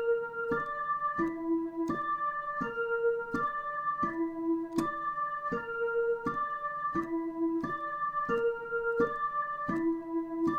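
Dutch ambulance siren pattern as clean electronic tones: two chords alternating about every 1.4 seconds, each sounded as a broken chord with its notes coming in one after another, repeating steadily.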